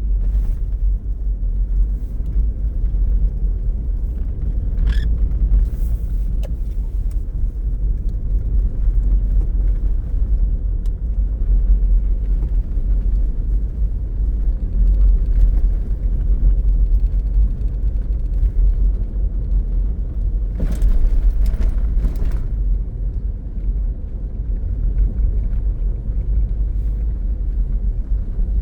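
Car driving on a snow-covered road, heard from inside the cabin: a steady low rumble of engine and tyres. A few brief, sharper noises come through about five seconds in and again around twenty-one seconds in.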